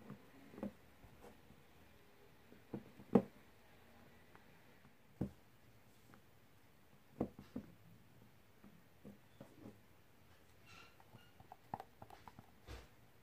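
Silicone spatula scraping and tapping against a metal mixing bowl while folding a thick batter: scattered soft knocks, the loudest about three seconds in. Near the end a low bump as a bowl is handled.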